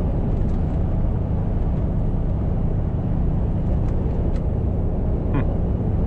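Steady drone of engine and road noise inside a Mercedes-Benz truck cab, driving at speed while hauling a heavily loaded trailer.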